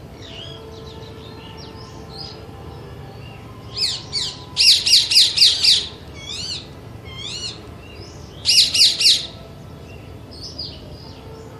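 Parakeet calling: a quick run of about six shrill, repeated screeches, then a few single calls and a second short run of four. Fainter chirps of other birds go on throughout.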